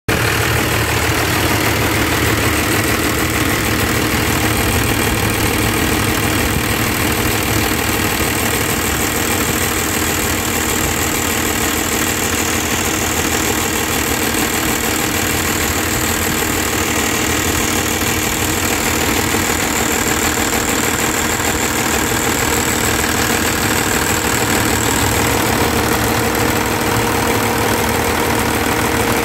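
Cummins 5.9 12-valve inline-six turbo diesel idling steadily.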